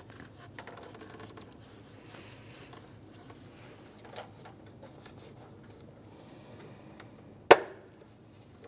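Faint rubbing and small clicks of a plastic MAP sensor being rocked by hand in its intake manifold bore, then one sharp snap near the end as it comes free.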